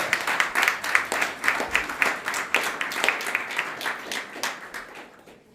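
Audience applauding, many hands clapping, fading out about five seconds in.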